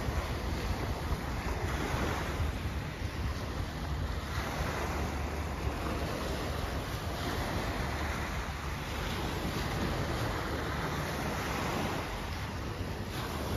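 Wind blowing over open river water, rumbling on the microphone: a steady rush that swells and eases every couple of seconds.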